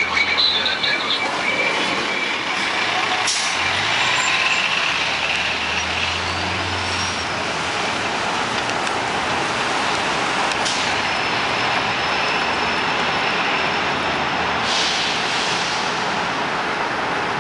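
MCI D4500CL coach's Caterpillar C-13 diesel running under way, with a faint high whistle that rises briefly and later holds steady. A few short hisses of air break in over it.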